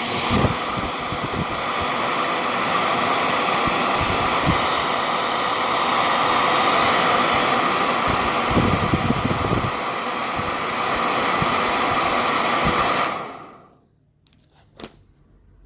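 Yellow Bird handheld blow dryer running with a steady rush of air, with low rumbles now and then; it switches off about two seconds before the end, followed by a single click.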